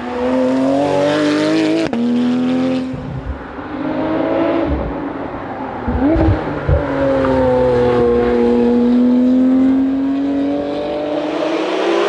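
Porsche 911 GT3's naturally aspirated flat-six engine pulling hard at high revs, the pitch climbing in several pulls with breaks between them, then holding one long high note for a few seconds before fading near the end.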